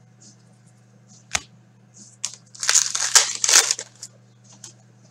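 Foil wrapper of a hockey card pack being torn open and crumpled by hand: a dense crinkling burst lasting about a second, from about two and a half seconds in. A single sharp click comes a second or so before it, with a few light ticks around it.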